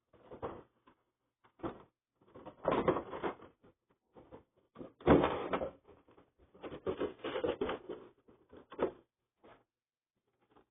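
Plastic toy parts and packaging being handled: irregular rustling, scraping and clicking in short bursts.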